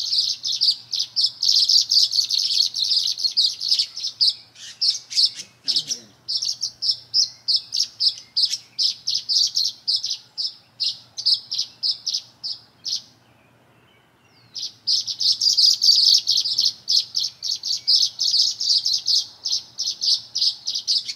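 Small songbirds chirping in a rapid, unbroken run of short, high calls, several a second. There is a pause of about a second and a half a little past the middle.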